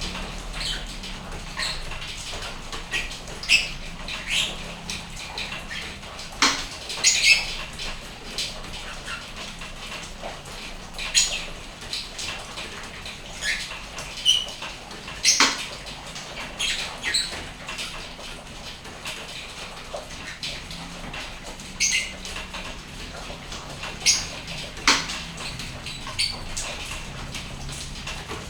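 Steady rain hiss under frequent short, high chirps and clicks from a lovebird, coming at irregular intervals, a few of them sharp and loud.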